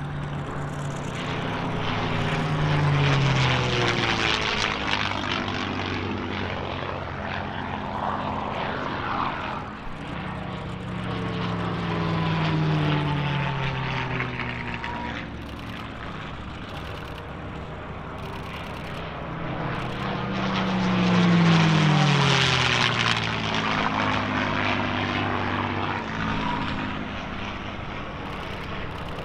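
P-51 Mustang's Packard V-1650 Merlin V-12 engine heard in three passes. Each pass swells and then drops in pitch as the aircraft goes by.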